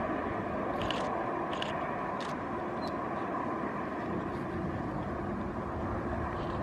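Airbus A340 rolling out on the runway just after touchdown: a steady distant roar from the four-engined airliner, with a few faint ticks in the first couple of seconds.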